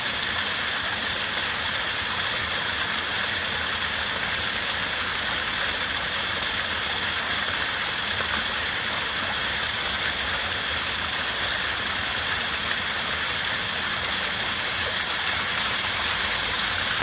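Waterfall: water rushing down in a steady, hissy roar that does not change.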